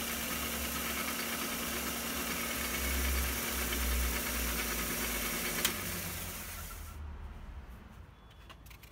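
Half-horsepower belt sander/grinder running with a steady whir and hum, then a click of its switch a little over halfway through, after which the motor and belt wind down to a stop.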